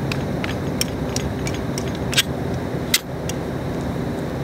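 Short metallic clicks and clinks as a suppressor is screwed onto the muzzle of a Barrett M99 .50-calibre rifle, the two sharpest about two and three seconds in, over a steady low hum.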